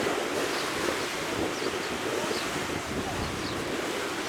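Steady wash of sea surf and wind noise on the microphone, with a few faint short high chirps scattered through it.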